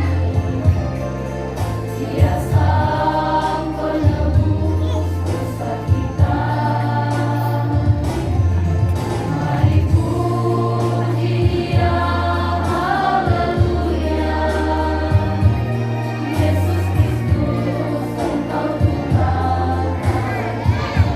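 Mixed group of young men and women singing a Christian praise song together, over a steady beat and a strong bass line.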